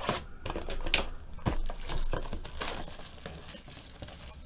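Clear plastic shrink wrap being torn off a cardboard trading-card hobby box and crumpled in the hand: irregular crinkling and crackling with a few sharp rips, the loudest near the start and about a second in.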